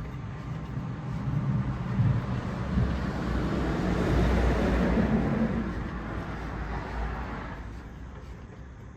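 Craftsman 8-inch table saw running, a motor hum under broad noise that swells through the middle and fades away near the end.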